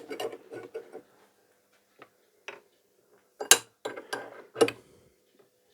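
Sharp, irregular knocks and clicks of tools working on a Simson S51 engine crankcase as it is being split apart, the loudest knocks about three and a half seconds in.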